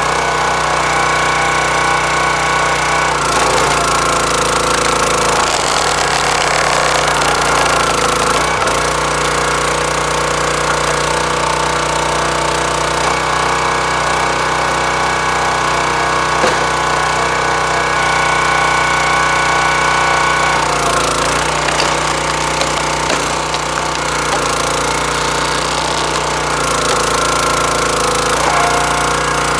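Small gas engine of a hydraulic log splitter running steadily, with its sound shifting a few times as the ram is worked, pushing ash rounds through a four-way splitting wedge and drawing back.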